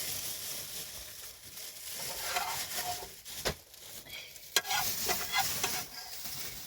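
Food sizzling in a frying pan, stirred with a utensil, with a steady hiss and two sharp knocks about halfway through.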